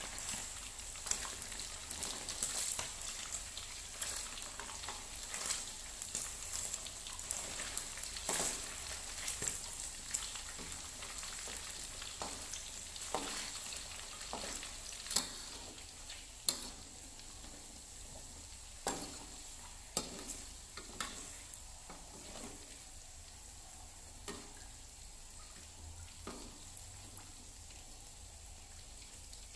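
Chicken pieces deep-frying in hot oil in an aluminium wok, a steady crackling sizzle that slowly grows quieter. A metal spatula turning the pieces clinks against the wok now and then.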